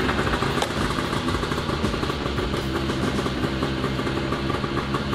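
1980 Yamaha Enticer 300 snowmobile's two-stroke engine idling steadily, just after being pull-started, running on fresh spark plugs.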